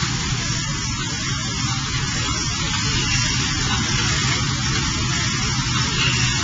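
Laser cleaning of a baking oven tray: a steady hiss with a low hum underneath as the laser head ablates the baked-on surface.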